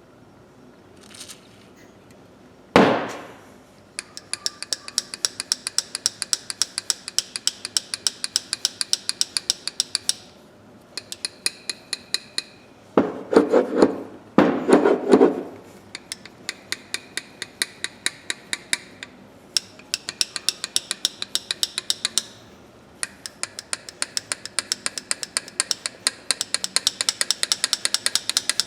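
Rusty steel pliers worked rapidly open and shut, their jaws clicking together several times a second in long runs, as the corroded joint is freed with carburetor cleaner. A single sharp metal knock comes about three seconds in, and two louder bursts of noise come about halfway through.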